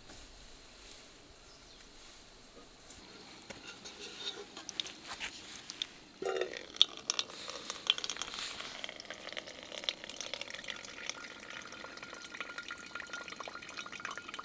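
Water running and splashing, starting suddenly about six seconds in after a few scattered clicks, and carrying on with a faint steady tone in it.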